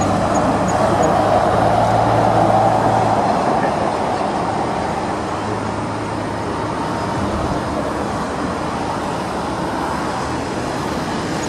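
Jet engines of a taxiing Boeing 747 heard from a distance, a steady rushing jet noise with a low hum beneath it. It swells during the first few seconds, then eases a little and holds.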